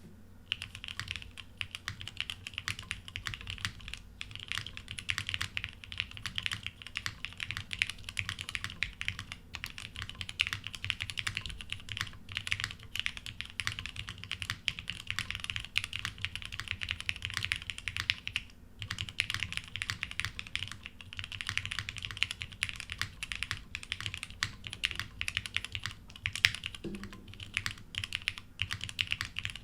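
Continuous fast typing on a TGR Jane V2 custom mechanical keyboard with lubed Cherry Hyperglide Black linear switches on an O-ring-mounted polycarbonate plate. There are a few brief pauses and one heavier keystroke near the end.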